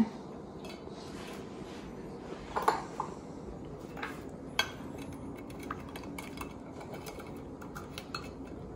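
A handful of light clinks and taps of glassware, a glass baking dish and a glass dessert cup handled on a granite countertop, spaced a second or so apart with fainter ones later, over a steady low room tone.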